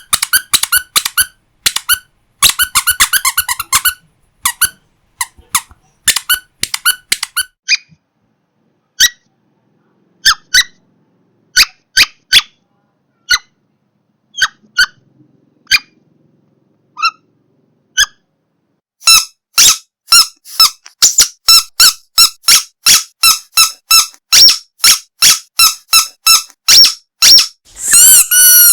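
A squeaky pet toy squeezed again and again, giving short high squeaks: quick clusters at first, then single squeaks spaced a second or more apart, then a fast steady run of two or three squeaks a second. Near the end one longer squeak bends in pitch.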